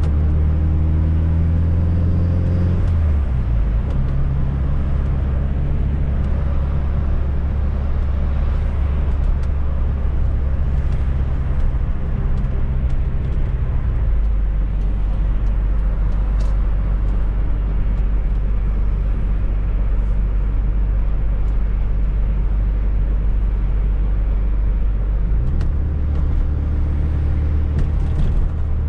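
Fiat Coupe 16V Turbo's turbocharged four-cylinder engine pulling the car along the road. Its revs climb for the first few seconds, then drop suddenly to a steady cruising note, step lower about halfway through, and rise again near the end, over steady road noise.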